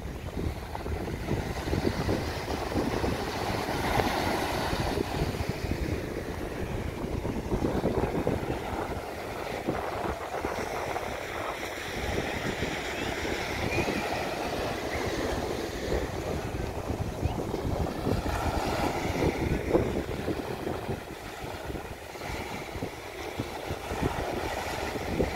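Small ocean waves breaking and washing up a sandy beach, the surf noise swelling and easing as each wave comes in, with wind rumbling on the microphone.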